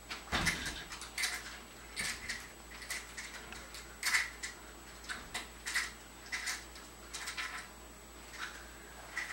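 Chihuahua giving a string of short, high-pitched excited whines, about one or two a second, in anticipation of her owner coming home.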